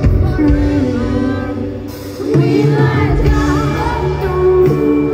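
Live concert performance of a pop song: a woman singing with band accompaniment.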